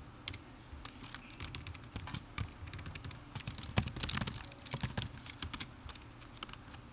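Typing on a computer keyboard: irregular keystrokes, with a quick run of keys about four seconds in.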